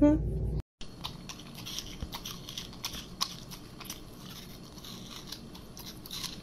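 Crunchy chewing and biting close to the microphone, an irregular run of small crackling crunches. It is preceded at the very start by a short rising squeal, cut off abruptly.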